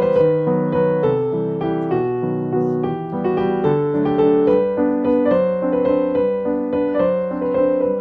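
Background piano music: a steady flow of notes struck one after another and left to ring.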